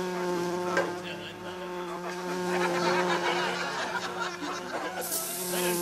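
Bluebottle fly buzzing: a steady, low drone. About five seconds in, a hiss of aerosol spray starts over it.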